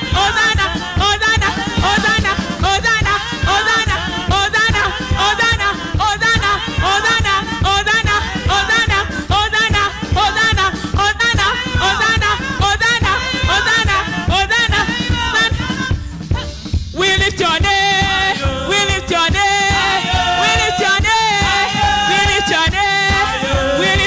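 Gospel worship song: a woman sings live into a microphone over a band with a steady beat. About two-thirds of the way through, the accompaniment drops out for a moment, then she holds long notes.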